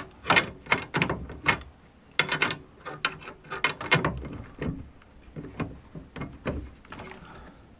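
Ratchet wrench clicking as a nut is tightened on a small steel bracket: a run of sharp clicks, a few a second, with a short pause about two seconds in and fewer clicks toward the end.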